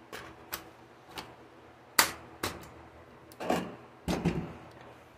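A string of sharp clicks and knocks from a polymer PMAG rifle magazine being handled against an AR-style rifle and a bench mat, the loudest knock about two seconds in and a rattly cluster near the end.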